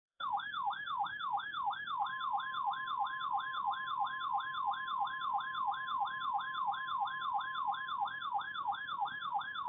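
Electronic emergency alert tone: a warbling siren that sweeps up and down about three times a second, joined about two seconds in by a steady tone near 1 kHz. It is the alert signal that precedes a broadcast flash flood watch message.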